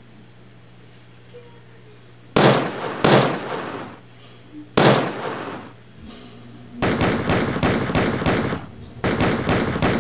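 Gunshots: three single shots, then two rapid bursts of automatic fire at about four shots a second, each shot fading with an echo, over a faint steady hum.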